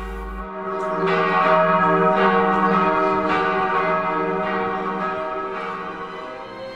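Church bells of Nidaros Cathedral ringing for Sunday, with a new stroke about once a second over a wash of overlapping ringing tones, fading slightly near the end.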